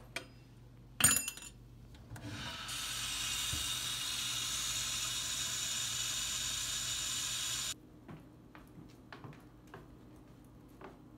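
Kitchen tap running, its water stream splashing into a stainless-steel sink as a steady hiss, starting about two seconds in and shut off suddenly near eight seconds. A sharp clank about a second in.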